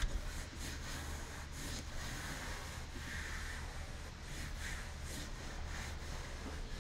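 A hand rubbing and pressing carpet-style headliner fabric onto ceiling panels tacky with contact adhesive, making a run of soft brushing strokes.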